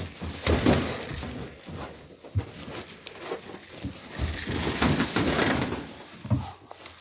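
Crunching and rustling in dry leaf litter, with scattered knocks and clicks, as animals are let out of a wire-mesh cage.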